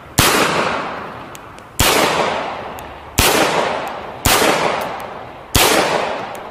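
Mauser C96 'broomhandle' pistol fired five times, a shot every second or so, each sharp crack followed by a long echo dying away.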